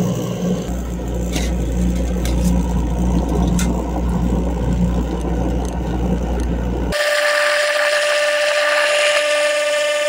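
Kitchen garbage disposal running with water flowing through it, a steady low motor hum with churning water, while the foaming cleaner tablet is flushed through. About seven seconds in the low hum stops, and a steady higher-pitched whine over hissing water carries on.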